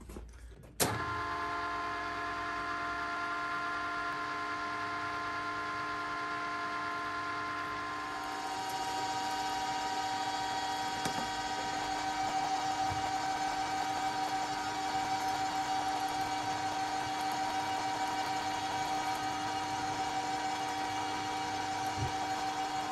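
Metal lathe with a drill in its spindle: the machine starts suddenly about a second in and runs with a steady whine of several tones. From about eight seconds in a twist drill cuts into a metal block, adding a busier cutting hiss and a stronger tone.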